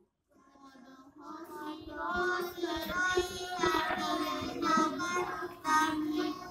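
Qur'an recitation: a single high voice chanting verses in a drawn-out, melodic style. It begins softly just after the start and grows louder within the first two seconds.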